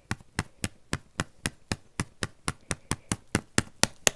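Keys on a mobile phone's keypad being pressed one after another, a steady run of sharp clicks about four a second as a phone number is typed in.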